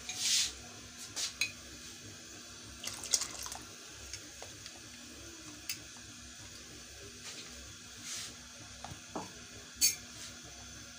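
Silicone spatula stirring thick peach and sugar syrup in a pan on the stove: scattered soft scrapes and taps against the pan, with a few brief wet, splashy bursts.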